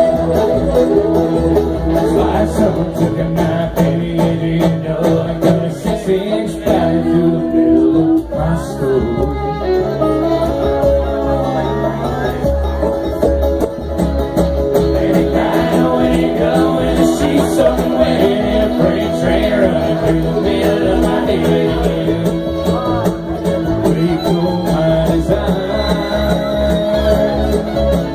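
Live bluegrass band playing: banjo, acoustic guitar and mandolin over an upright bass.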